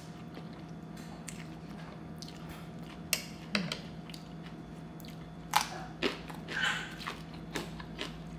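Close-miked chewing of a mouthful of rice noodles, with a few crisp crunches in the second half as raw bitter melon is bitten, over a steady low hum.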